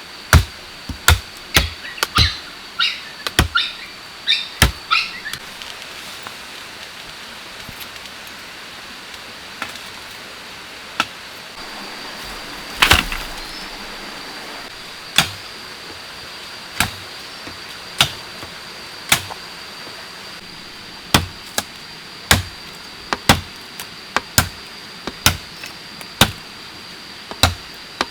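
A blade chopping bamboo: single sharp strikes at an uneven pace, a lull of a few seconds early on, then more frequent strikes near the end.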